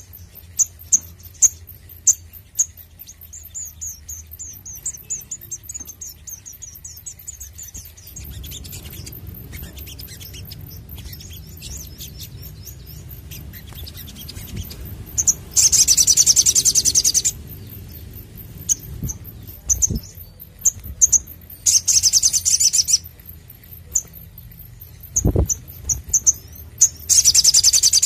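Male olive-backed sunbird (sogok ontong) singing: a run of short, very high, thin chirps, then three loud, rapid, very high trills of one to two seconds each, with scattered chirps between them.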